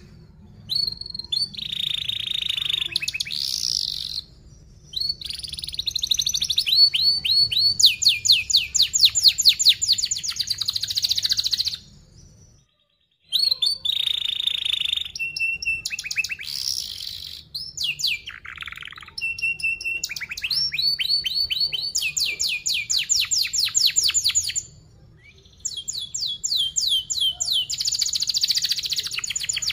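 A domestic canary singing a long, fast song of rapid trills and rolling chattering phrases, each phrase a run of quick repeated notes. Short pauses come about 4 s, 13 s and 25 s in.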